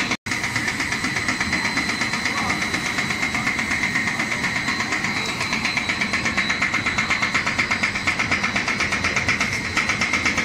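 Snack-processing machinery running steadily, with a regular pulse about four or five times a second over a steady high whine. The sound cuts out for a moment near the start.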